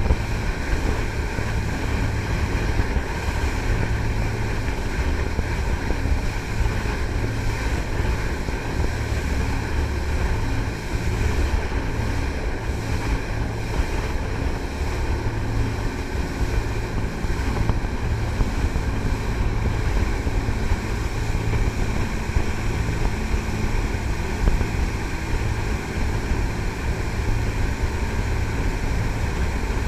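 Jet boat under way at a steady pace: an even engine drone with rushing water and wind noise, no change in speed.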